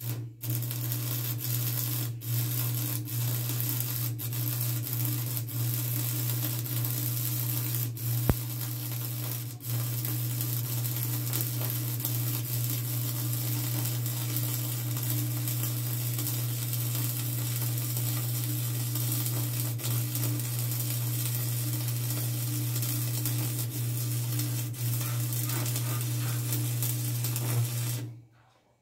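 Electric arc welding: a continuous crackling hiss over a steady low hum. It starts abruptly, runs unbroken with a few sharp pops, and cuts off near the end.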